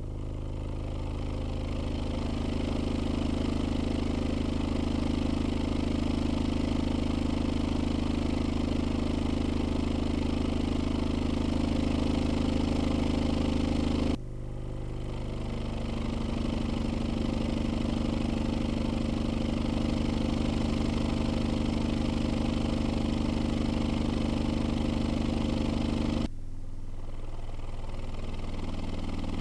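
Skar SDR-18 18-inch subwoofer driver playing a 26 Hz test tone in free air, heard as a steady, deep, buzzy drone. The tone breaks off for a moment about halfway through and resumes, then steps down to a lower 20 Hz tone a few seconds before the end, with no popping: the driver is working fine in free air.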